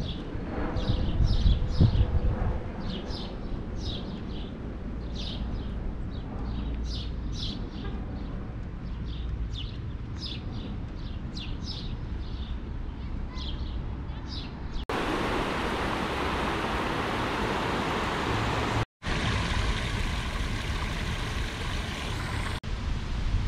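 Small birds chirping, short high notes repeated irregularly, over a low outdoor rumble that swells briefly about two seconds in. About fifteen seconds in the sound changes abruptly to a steady rushing of wind on the microphone.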